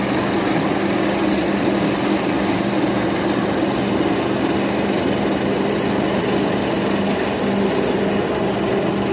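Jersey Devil Coaster's lift hill running as a loaded train is hauled up it: a steady mechanical drone with a constant low hum.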